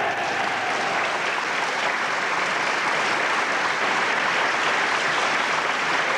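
A large assembly of people applauding steadily, many hands clapping at once.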